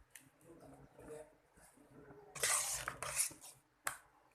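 Kitchen utensil scraping and clinking against a pot or bowl: faint light clicks at first, then a loud rough scraping stretch with clinks just past halfway, and one sharp clink near the end.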